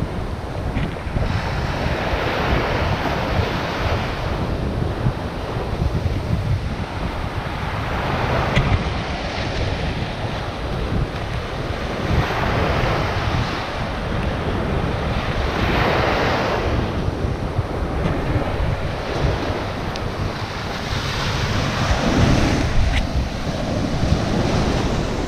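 Small waves breaking and washing up a sandy shore, the surf hiss swelling every few seconds, with wind buffeting the microphone as a constant low rumble.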